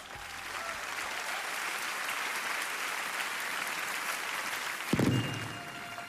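Large theatre audience applauding steadily. About five seconds in, a sudden deep boom cuts in and a held musical note follows as the song's introduction begins.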